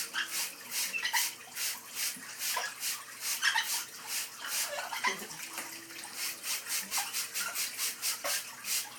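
Water splashing in an even rhythm, about three splashes a second, as pet Amazon parrots bathe, with a few brief chirps from the birds.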